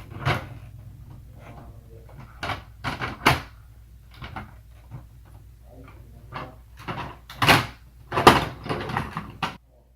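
Plastic parts of a Bruder toy tow truck being handled, with a string of irregular clacks and knocks, the loudest two about a second apart near the end.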